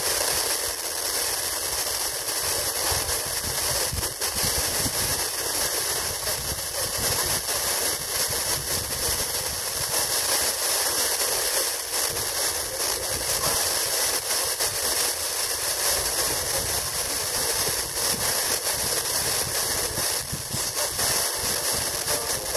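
Steady FM radio static hiss from a TEF6686 receiver tuned where reception is weak or absent.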